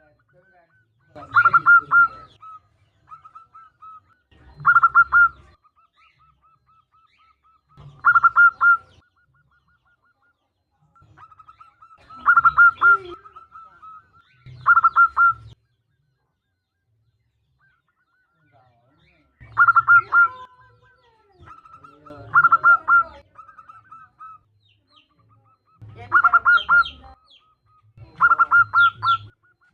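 Zebra dove cooing: about nine loud, rattling coo phrases a few seconds apart, with softer trilled cooing between them. It is offered as a female's call to draw males into song.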